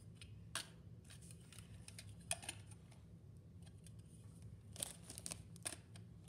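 Hard plastic parts of a toy dart gun clicking and knocking as an orange dart-holder piece is pushed and turned against the gun body without seating. Scattered faint clicks, a few at a time, over a low steady hum.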